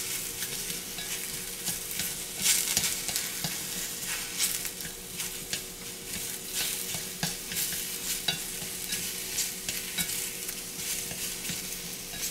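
Sliced shiitake mushrooms sizzling in hot oil in a saucepan as they are stirred, with a utensil clicking and scraping against the pan every second or so.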